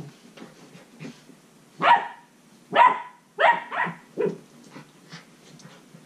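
Ten-week-old Belgian Malinois puppies play-barking: about five short, loud barks from about two seconds in to just past four seconds, the middle ones in quick succession.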